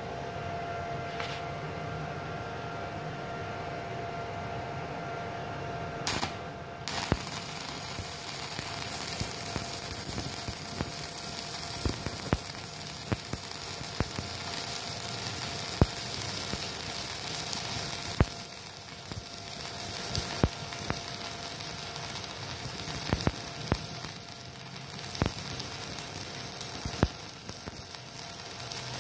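An IGBT inverter stick (MMA) welder runs at maximum amperage. After about six seconds of steady hum, the arc is struck and the electrode burns with a continuous crackling sizzle, broken by sharp pops.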